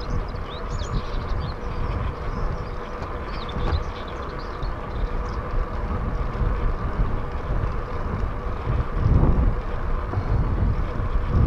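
Bicycle rolling along a rough tarmac lane: steady tyre rumble and wind buffeting the handlebar-mounted microphone, gusting harder about nine seconds in and again at the end. Birds chirp faintly in the first few seconds.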